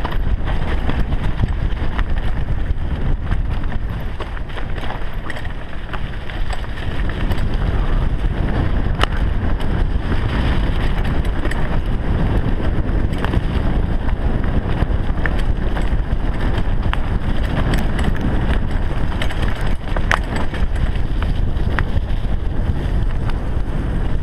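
Wind rushing over a GoPro's microphone, with the rumble and rattle of a mountain bike riding fast over a rough dirt trail. A few sharp knocks come from bumps along the way.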